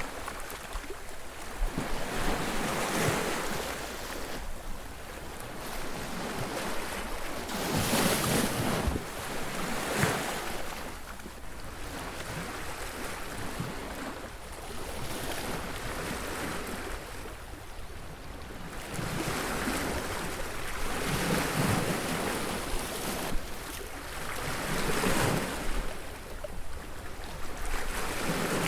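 Surf breaking on a beach: waves crash in one after another every few seconds, each a rising then fading wash of noise over a constant roar of the sea.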